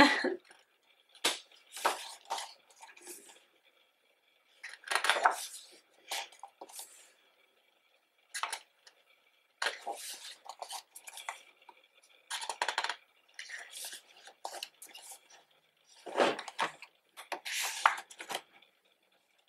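Pages of a glossy photo book being turned by hand, one after another: a series of short paper rustles and flaps at irregular intervals, a second or two apart.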